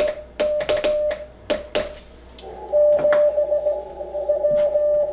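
Morse code on an Icom IC-7300 transceiver. For the first two seconds the radio's sidetone beeps on and off in dits and dahs, each keying with the sharp tock of a straight key being tapped. Then the receiver audio opens as a narrow band of hiss, and an incoming Morse tone is heard in it, first held and then broken into shorter elements.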